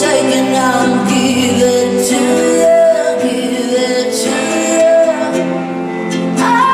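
Live pop-rock song: a woman singing lead over the band's accompaniment, her voice holding drawn-out notes.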